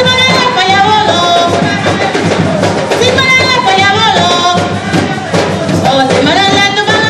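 Garifuna hand drums played by several drummers, with voices singing over the beat.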